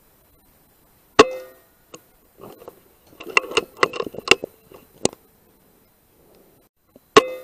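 Two sharp rifle shots about six seconds apart, each with a short metallic ring after it. Between them comes a quick run of small mechanical clicks, as the action is worked to load the next round.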